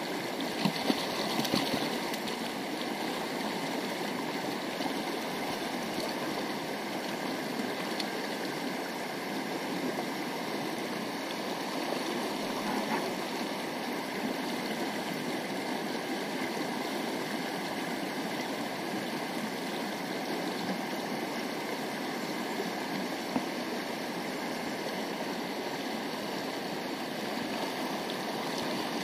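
Shallow, fast mountain river rushing steadily over rocks and boulders.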